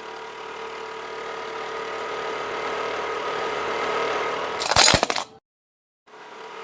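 A steady mechanical hum with a few held tones grows gradually louder. About five seconds in a sharp, loud crash breaks through and the sound cuts off abruptly. The hum comes back briefly near the end.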